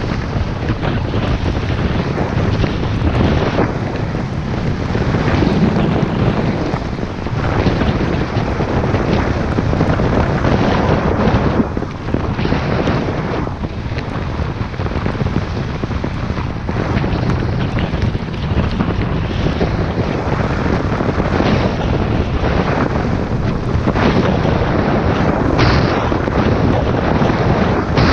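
Wind rushing over the microphone of a camera worn by a skier going downhill, mixed with the hiss and scrape of skis on snow. The noise swells and eases every second or two.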